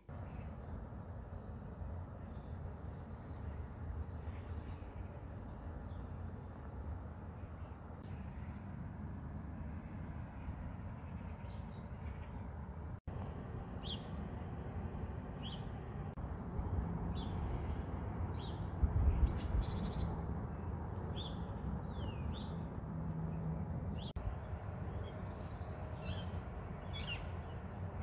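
Outdoor ambience: a steady low rumble with small birds chirping and calling, the chirps coming more often in the second half.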